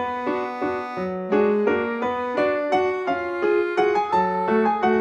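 Background piano music: a light, quick run of notes over changing chords.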